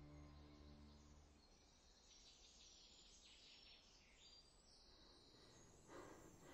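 Near silence: faint outdoor ambience with faint high bird chirps, as a low music drone fades out in the first second or so. A short soft noise comes near the end.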